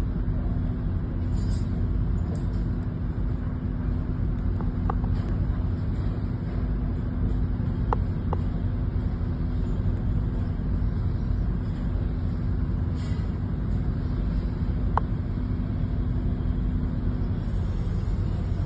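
Steady low mechanical rumble with a constant hum running over it; the hum stops shortly before the end. A few faint, very short chirps come through now and then.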